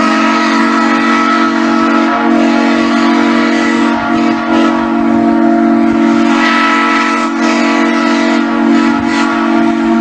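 Steam train whistle sounding one long, unbroken blast: several steady pitches sound together as a chord over a breathy hiss.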